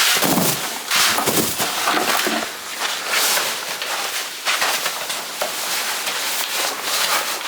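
Rustling and scraping in irregular bursts as a sheet of ground membrane is handled and laid out, doubled up, over a sand bed.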